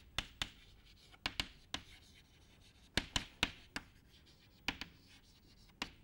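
Chalk writing on a blackboard: a string of irregular sharp taps and short scratches as the chalk strikes and drags across the board, some in quick pairs.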